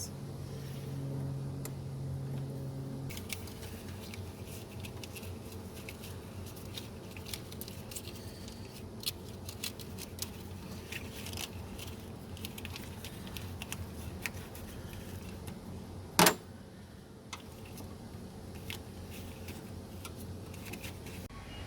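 Small metallic clicks and rattles of hand tools and wiring being worked on while the positive battery terminal is disconnected, with one sharp, louder clink about 16 seconds in. A steady low hum runs under the first three seconds.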